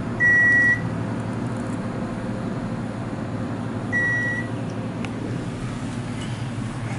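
Two short, high electronic beeps from a 1970s Dover traction elevator's modernized controller, the 'microwave beep', about four seconds apart, over the steady hum of the car travelling down.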